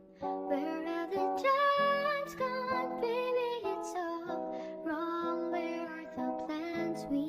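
Nightcore-style sped-up, high-pitched female vocal cover with a plucked-string accompaniment. The music dips briefly right at the start, then the singing and chords carry on.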